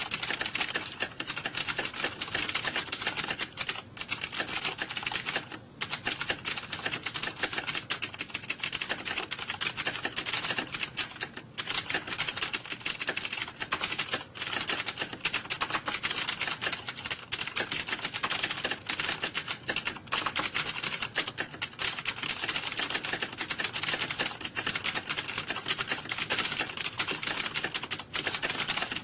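Many computer keyboards being typed on at once, a dense, unbroken clatter of keystrokes, as in a typing test.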